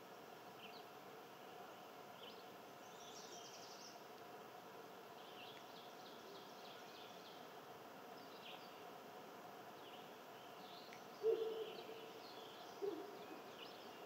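Faint small birds chirping on and off over a low steady hum. Near the end come two short, louder low-pitched sounds about a second and a half apart.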